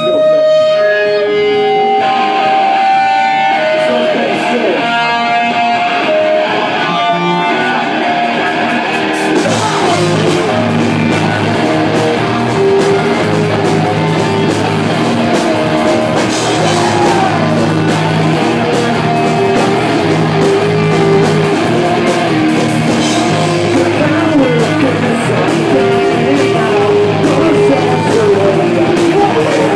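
Live rock band playing amplified: a few separate held notes open it, then about nine seconds in the full band comes in with electric guitar, bass guitar, drums and vocals, and plays on at a steady loud level.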